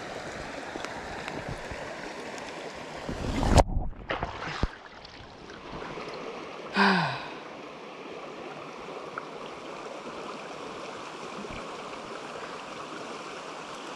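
Shallow creek water running steadily, broken about three and a half seconds in by a loud splash and sloshing as a scoop net is plunged and swept through the water, the sound going briefly muffled afterwards. About seven seconds in there is a short, falling vocal groan.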